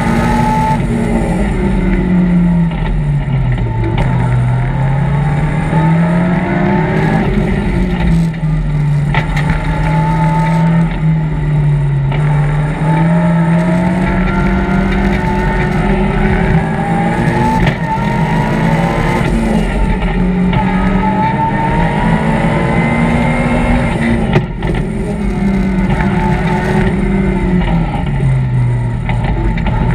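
BMW M3 rally car engine heard from inside the cabin, revving hard and changing gear. Its pitch drops steeply three times as the car brakes and downshifts into bends, and climbs again under acceleration between them.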